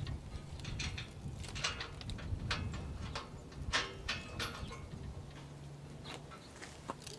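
Irregular light metallic clicks and taps as nuts and flat washers are threaded by hand onto the bolts of a steel tractor brush guard's side plates.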